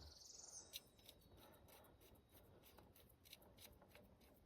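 Near silence with faint rustling and a few small clicks of hands handling material.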